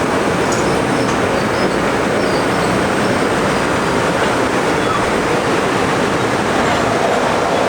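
Train passing close by at speed on the New Haven Line: a loud, steady rushing of wheels on rail and moving air.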